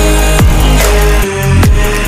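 Electronic dance music with heavy bass and a steady beat, with falling pitch sweeps about once a second.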